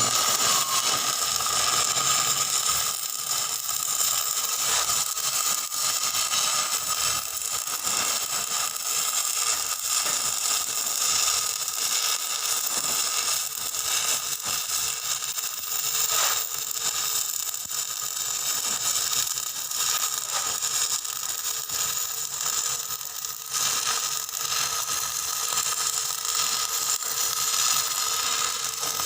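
Welding arc crackling and hissing steadily, with rapid irregular sputtering.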